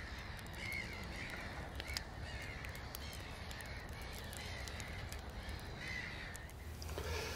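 Faint crow-like caws, repeated at intervals of about a second, over a low steady background with a few light crackles.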